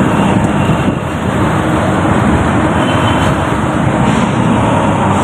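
Steady engine and road noise heard from inside a moving passenger vehicle, with street traffic coming in through an open window.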